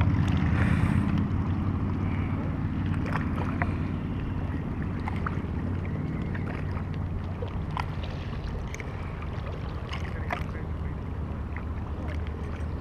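A steady low engine drone that slowly fades, with a few faint clicks scattered through it.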